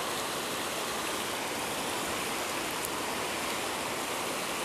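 Steady rushing of running water, an even hiss that neither rises nor falls.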